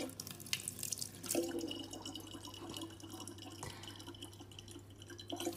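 A thin stream of tap water trickling from a faucet into a large plastic water bottle, faint, with many small drips and splashes.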